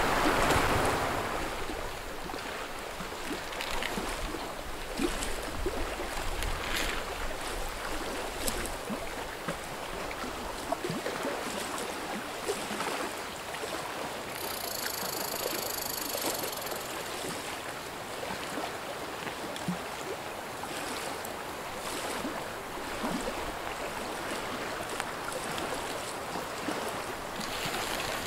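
Steady wash of small lake waves lapping at the shore, with wind and scattered light clicks and rustles. A little louder in the first second.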